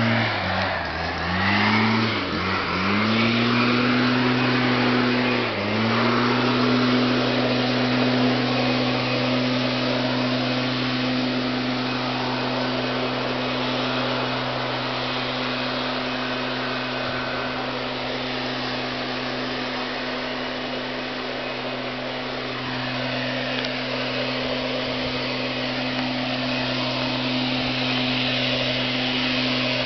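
Petrol leaf blower running: its engine drops and climbs back several times in the first few seconds, then holds at steady high revs, with a loud rush of air.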